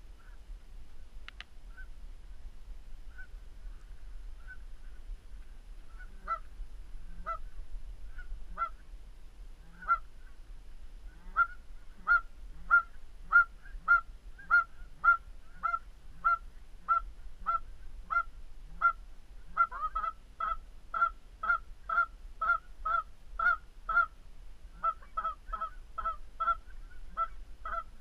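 Goose honking: a few scattered honks at first, then from about a third of the way in a steady, loud run of short honks at about one and a half a second, some coming in quick pairs. A low rumble runs underneath.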